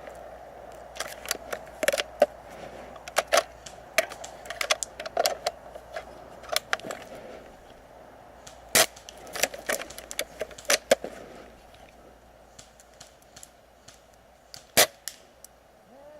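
Airsoft guns firing irregular single shots: sharp cracks and clicks, mostly faint, with a couple of louder ones about nine and fifteen seconds in.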